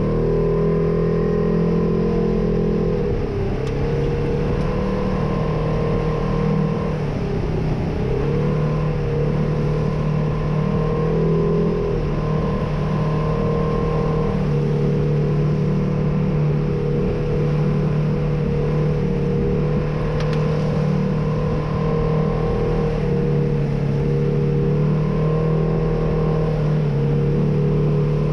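Polaris RZR side-by-side's twin-cylinder engine running steadily under load at about 4,500 rpm, heard from the cab. Its pitch dips and recovers a few seconds in and again around eight seconds.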